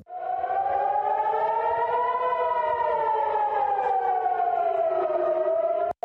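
Civil-defence air-raid siren wailing as a missile-attack warning, sliding slowly up in pitch and then down again. It cuts off suddenly near the end.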